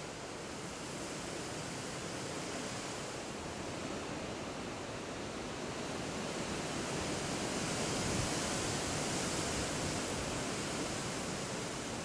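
Steady, even rushing noise outdoors, growing slightly louder past the middle, with no distinct bird calls standing out.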